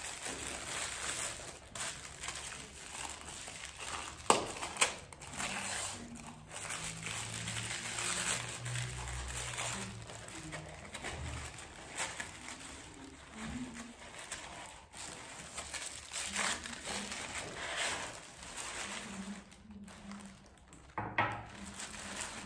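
Plastic gift wrapping crinkling and rustling as it is pulled open by hand, with two sharp clicks about four seconds in.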